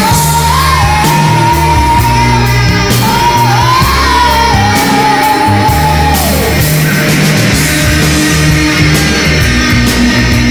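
1980s Malaysian rock song: a long, high held lead note bends up and down over the band, then slides down and stops about six seconds in while the band plays on.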